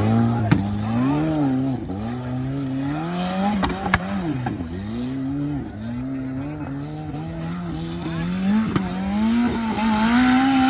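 Off-road competition buggy's engine revving up and down over and over, with the pitch rising and falling every second or so, and a couple of sharp knocks.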